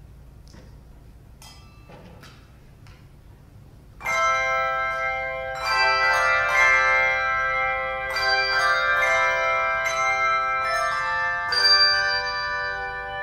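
A handbell choir ringing handbells: after about four seconds of quiet with a few faint clicks, the ringers strike a full chord and go on sounding ringing, overlapping chords, each new strike layered over the decay of the last.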